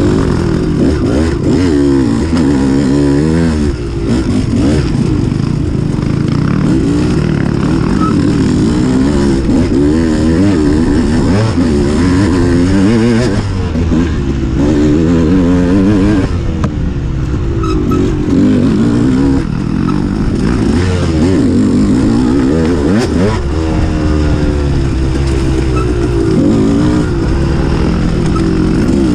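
Dirt bike engine under way, its pitch rising and falling over and over as the throttle is opened and closed.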